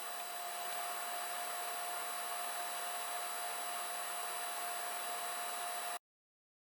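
Steady fan whir with a constant hum tone, most likely the 3D printer's cooling fans running. It cuts off abruptly near the end.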